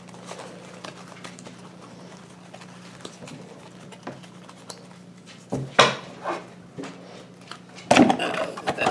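Faint low steady hum with scattered small clicks and taps, a few louder knocks about five and a half seconds in, then loud close rustling and knocking of trading cards and packs being handled on a wooden table near the end.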